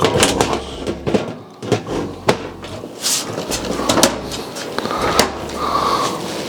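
A PC tower case being handled. Its panels give a series of sharp clicks, knocks and rattles.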